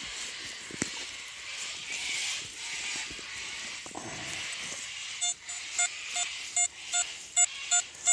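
Metal detector beeping over a target: short, evenly spaced pitched beeps, about two to three a second, starting about five seconds in, after a stretch of faint hiss with one click.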